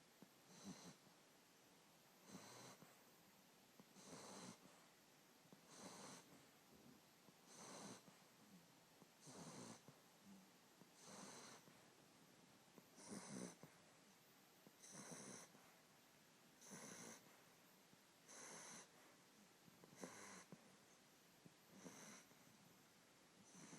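A sleeping man snoring faintly and regularly, about one snore every two seconds.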